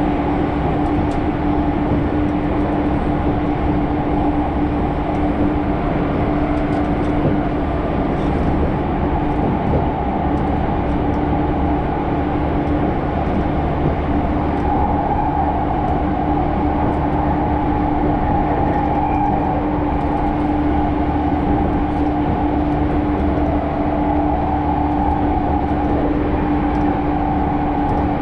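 Steady running noise heard from inside a commuter train car riding at even speed, with a constant low hum.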